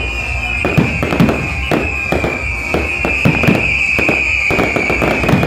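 Fireworks going off in a display: repeated bangs, several a second, under a high whistling tone that slowly falls in pitch.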